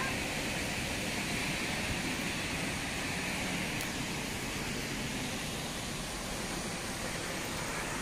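Steady, even rushing noise of a distant waterfall, with no breaks or separate knocks.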